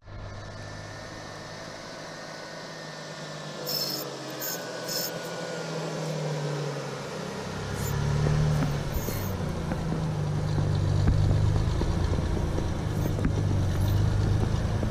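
A car or truck engine running as the vehicle approaches, growing louder from about halfway through, with a few short clicks near the start.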